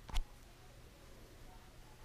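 One sharp click just after the start, then faint room tone.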